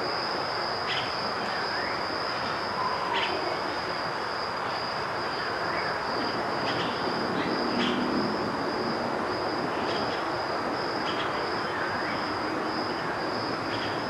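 Outdoor ambience: a steady, high-pitched insect drone over a constant hiss, with short chirps scattered through.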